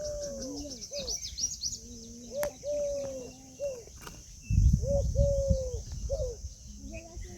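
Peahen calling: a string of short calls, each rising and then falling in pitch, with small birds chirping high and faint behind them. A low rumble comes in about halfway through.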